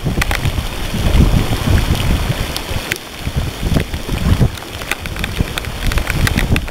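Strong gusting wind buffeting the microphone in a rainstorm over choppy water, a loud uneven rumble, with many scattered sharp ticks of raindrops striking the camera.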